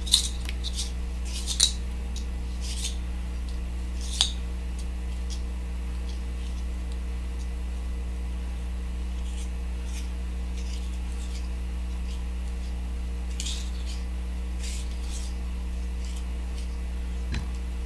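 Light scratches and clicks of yellow floss and a thread bobbin being handled as the floss is wrapped onto a hook in a fly-tying vise, sharpest near the start and about four seconds in. A steady low hum runs beneath.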